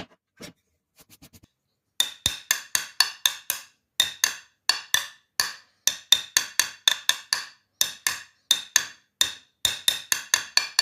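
Pieces of wood struck one after another, each a sharp knock with a brief ringing tone, in quick runs of about three to four strikes a second starting about two seconds in.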